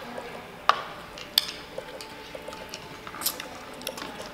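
Hands breaking apart sauce-coated king crab legs and peeling boiled shrimp: a few sharp shell cracks over wet, squishy handling.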